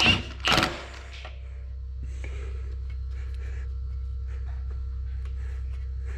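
A steady low machine hum with a faint steady tone above it, and scattered light clicks and taps of hand tools on the chain as it is tightened. There is a short loud sound in the first second.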